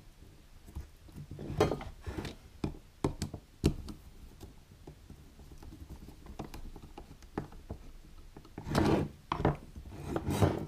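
Scattered light clicks and knocks of a wire being hooked onto a wall thermostat's terminal screw and tightened with a slotted screwdriver, with louder handling rustles and knocks about nine and ten seconds in.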